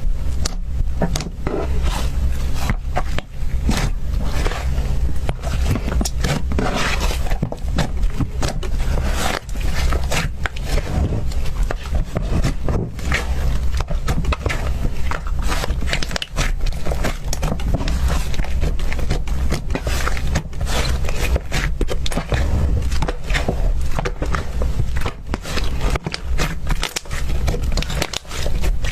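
Slime being squeezed and worked by hand, giving a dense, irregular crackling of small clicks and pops with scraping.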